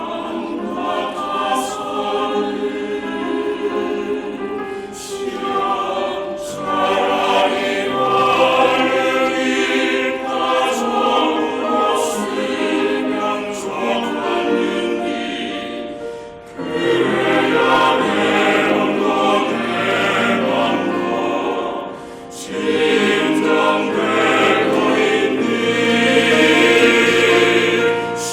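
A choir singing a Korean choral art song with piano accompaniment, in long sung phrases with short breaths about 16 and 22 seconds in.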